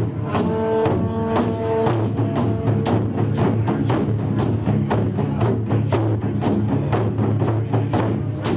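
Taiko ensemble drumming: large barrel-shaped taiko drums struck with wooden sticks in a steady, fast rhythm of strokes, with a bright ringing accent on many beats.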